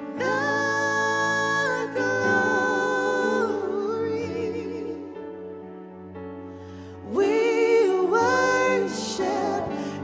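Gospel praise-and-worship song sung by three voices, two women and a man, over a sustained instrumental backing, with long held notes. The voices drop away to a softer passage in the middle and come back strongly about seven seconds in.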